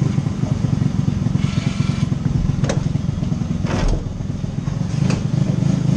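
Briggs & Stratton LO206 kart engine, a four-stroke single, idling steadily, with three sharp knocks in the middle.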